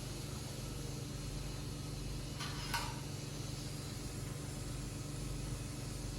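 Electric suction machine running with a steady motor hum and hiss, with one short louder rush of noise a little before halfway through.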